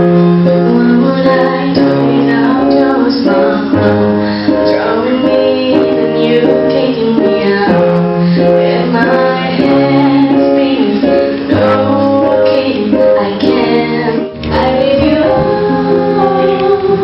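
A woman singing live to her own accompaniment on a Roland digital piano, with held chords and low bass notes under the melody.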